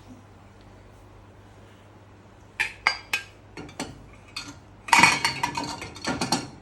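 Dishes clinking against each other and the dishwasher rack as they are loaded. A few separate clinks come about two and a half seconds in, then a dense clatter about five seconds in.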